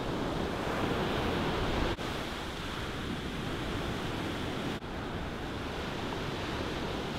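Ocean surf breaking and washing up a sandy beach, a steady rush of noise with some wind on the microphone. The sound dips for an instant twice, about two and five seconds in.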